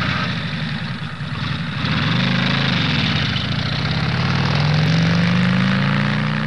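Vehicle engine revving up and down. Its pitch climbs about two seconds in, dips, then climbs again to a peak about five seconds in before easing off near the end, with a steady rushing noise above it.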